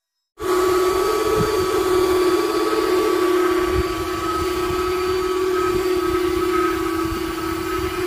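INNOS window-cleaning robot's suction fan running with a steady, loud whine while it holds itself to the window glass, starting abruptly about half a second in, with an uneven low rumble underneath.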